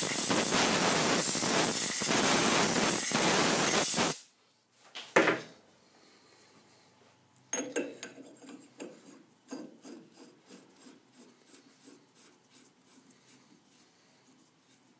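Compressed-air blow gun blasting chips out of a freshly cut M50 x 1.5 thread: a loud steady hiss for about four seconds that cuts off sharply, then a short second blast a second later. After that come faint clicks and scraping as a threaded ring is screwed onto the thread by hand to test its fit.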